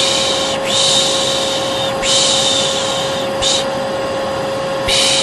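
A hair dryer runs steadily with a constant hum and rush of air, overlaid by long repeated shushing sounds ("şşş"), each about a second long, with a longer pause about three and a half seconds in: white noise for soothing a colicky baby.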